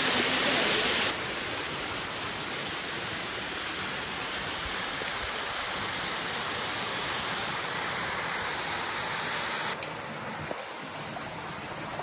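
Steady rush of water from small waterfalls pouring over rock into a stream pool. The level drops abruptly about a second in and again near the end.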